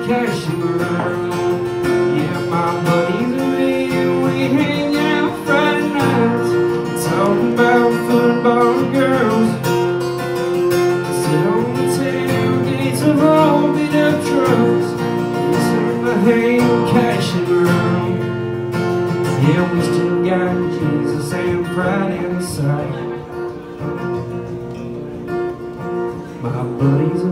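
A man singing a country song while strumming an acoustic guitar.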